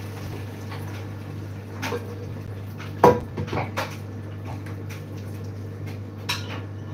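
Pots, pans and utensils clattering on a kitchen hob: a handful of knocks and scrapes, with one sharp clank about three seconds in, over a steady low hum.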